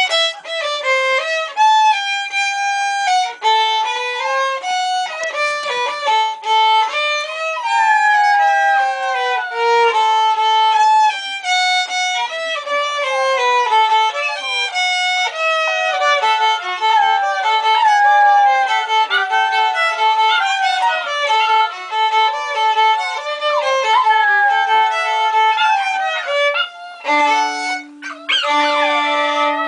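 Violin playing a melody of stepping notes with occasional slides. Near the end it holds a low note, and English Springer Spaniel puppies start howling along in sweeping rising and falling cries.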